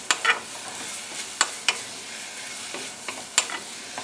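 Diced Granny Smith apples sizzling in butter in a stainless steel saucepan, stirred with a wooden spoon that knocks against the pan several times.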